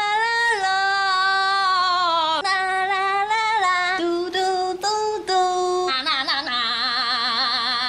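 A female voice singing a melody in long held notes, with no words caught, ending on a long held note with vibrato near the end.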